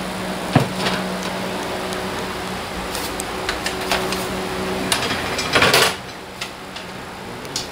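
Fanuc 20S AC servo motor (A06B-0502-B756) running on a test bench with a steady hum. A few light clicks and a short scraping rustle come about five and a half seconds in, and the hum is quieter after that.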